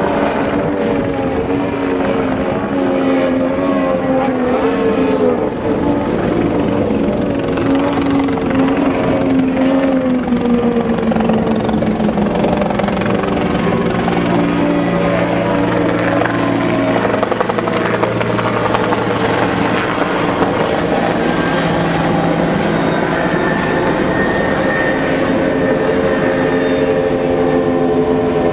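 Racing speedboat engines running at full throttle as the boats pass at speed, several engines droning over one another, their pitch sliding down as each boat goes by.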